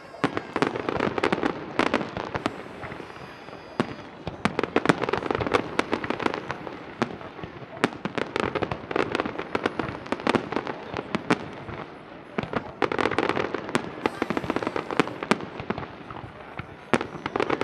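Aerial fireworks display: a dense, continuous run of shell bangs and crackling reports, thickening into heavier flurries several times.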